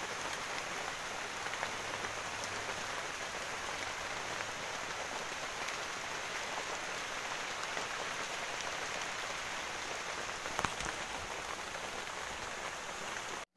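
Heavy rain falling steadily on the surrounding leaves, an even hiss with a few louder drops; it cuts off abruptly at the very end.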